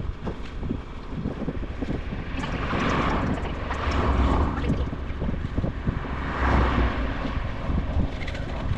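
Wind buffeting a GoPro's microphone while cycling: a steady low rumble, with two louder rushing swells, one about three seconds in and one about six and a half seconds in.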